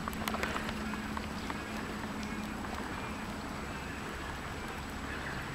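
Steady outdoor background hiss with a faint low hum underneath, and a few light clicks in the first second and a half.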